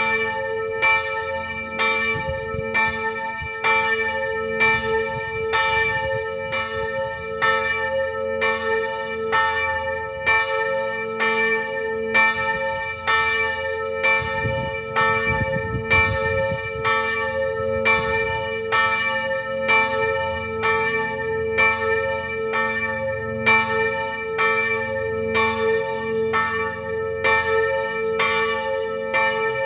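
Church bells tolling at an even pace, about three strokes every two seconds, over a continuous ringing hum.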